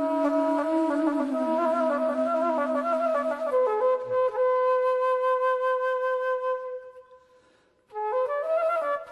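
Flute playing a wavering melody over a lower held tone. About four seconds in, the lower tone stops and the flute holds one long note that fades away around seven seconds in. The melody starts again about a second later.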